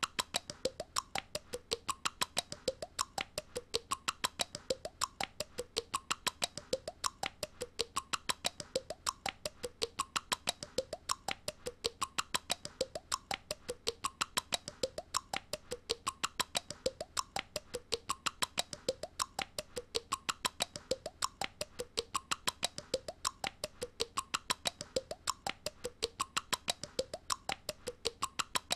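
A small cartoon girl's repetitive mouth noise, looped: sharp clicks about four a second with a squeaky tone going up and down, a deliberately annoying sound.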